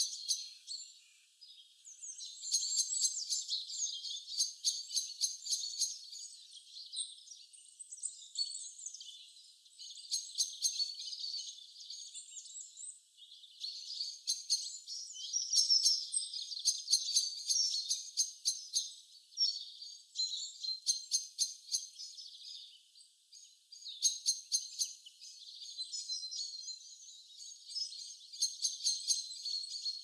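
A chorus of songbirds chirping and trilling, with quick rattling runs of repeated notes, all thin and high-pitched with nothing in the low range.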